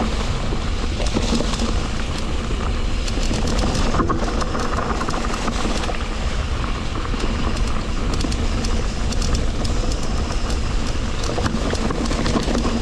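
A Cube Stereo Hybrid 140 electric mountain bike riding over rocky ground: steady wind rush on a chest-mounted action camera's microphone, with many small rattles and clicks from the bike and the stones under its tyres.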